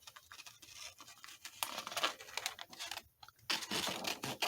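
Scratchy strokes against paper from hand crafting work, a pencil or scissors on paper. The strokes come in short runs, pause briefly about three seconds in, then come closer together near the end.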